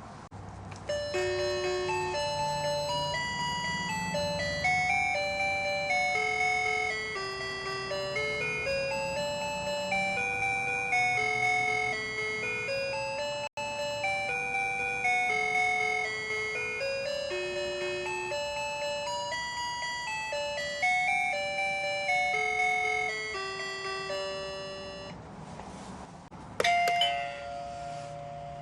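Dollhouse doorbell kit playing an electronic melody through its small speaker box. The tune of single clear notes lasts about twelve seconds and plays twice with a brief break between. Near the end it starts again with a click.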